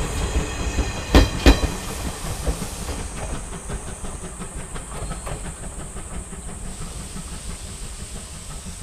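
SL Moka train, hauled by steam locomotive C11 325, running away past the platform. The last coach's wheels clack twice over a rail joint about a second in, then the running noise fades steadily to a low hiss.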